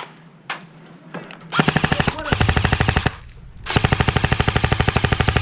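Airsoft rifle firing on full auto: a few separate clicks, then two long rapid bursts of about a second and a half and two seconds, with a short pause between.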